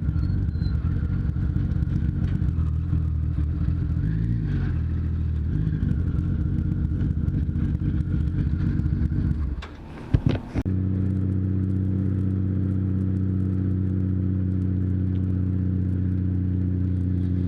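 Honda Valkyrie's flat-six engine running steadily as the motorcycle is ridden. About ten seconds in, the sound briefly drops away with a few sharp clicks, then the engine drone comes back and holds very steady.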